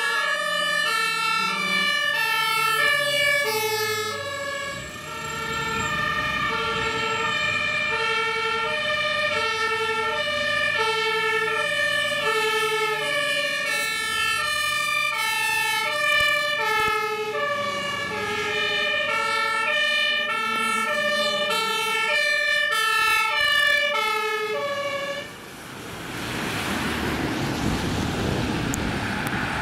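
German two-tone emergency vehicle sirens (Martinshorn), more than one sounding at once, each stepping back and forth between two pitches. About 25 seconds in the sirens stop and a steady rushing noise takes over.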